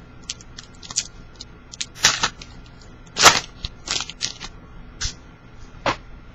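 Trading cards and their pack wrappers being handled: a series of short rustles and clicks, the loudest about two and three seconds in.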